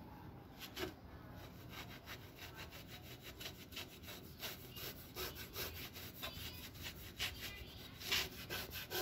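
Hand rubbing quickly back and forth over the grip-tape strips and polished aluminium deck of a stand-up scooter: a rasping stroke several times a second, with a few louder strokes.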